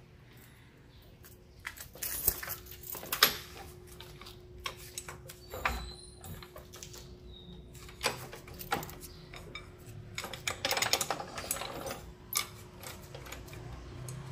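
Hydraulic floor jack under the front of a van being worked: irregular metallic clicks and clanks in several clusters, over a faint steady hum.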